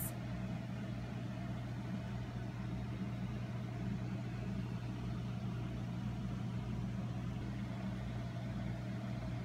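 A steady low hum over faint even background noise, unchanging throughout.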